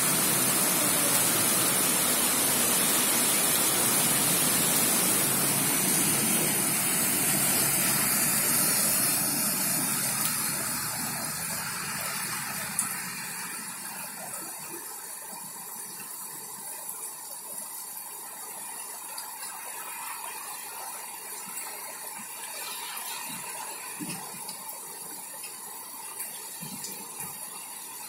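Heavy rain on a city street, a steady hiss that is loud at first and eases to a quieter patter about ten to fourteen seconds in. A single sharp tap about thirteen seconds in.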